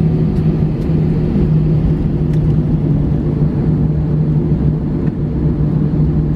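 Cabin noise of an Airbus A319 rolling off the runway onto the taxiway just after landing: a steady low rumble and hum from the engines and the wheels on the tarmac, heard from a seat over the wing.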